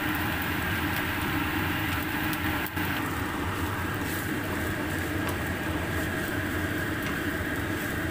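Fried rice sizzling in a nonstick pan as a wooden spatula stirs and scrapes through it, over a steady hum from the electric cooktop, with small irregular scraping clicks.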